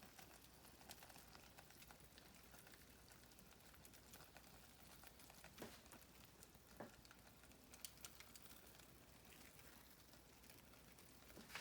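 Near silence: room tone with a few faint, short clicks about halfway through.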